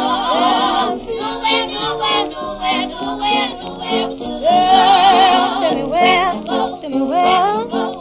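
Gospel song recording: a woman's voice sings with heavy vibrato over steady accompaniment, holding one loud high note about five seconds in.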